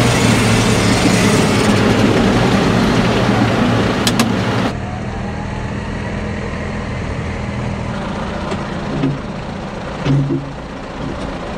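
John Deere tractor's diesel engine running steadily, loud and close as the tractor drives. Just under five seconds in the sound drops to a quieter, more distant engine run. Three short louder swells come near the end.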